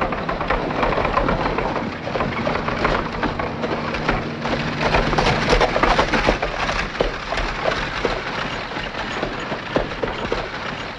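A one-horse buggy on the move: the horse's hooves clopping and the wooden-spoked wheels rattling in a dense, busy clatter.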